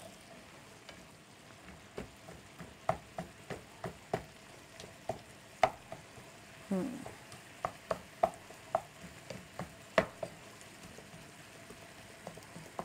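Wooden spatula stirring and scraping a tomato and spice masala sizzling in a frying pan, with irregular sharp knocks of the spatula against the pan. The masala is being fried down until its water dries off.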